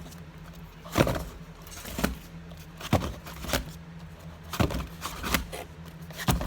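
Wrapped rolls of half-dollar coins knocking and clacking against each other as they are handled and flipped over to check the end coins: about seven separate knocks, with a low steady hum underneath.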